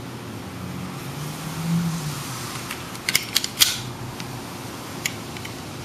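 Sharp clicks of a CNC metal slide for a Marushin Glock 21 pistol being handled: a quick run of four clicks about three seconds in, then one more click about two seconds later.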